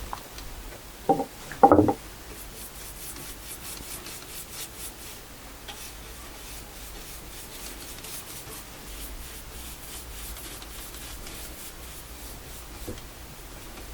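Brush strokes of varnish on wood: a faint, steady, repeated rubbing. Two brief louder sounds come between one and two seconds in.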